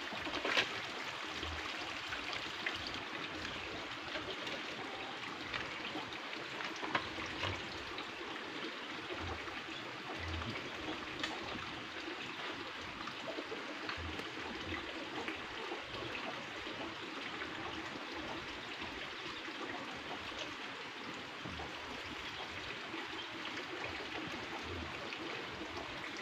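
Steady rushing of running water, with a few faint clicks here and there.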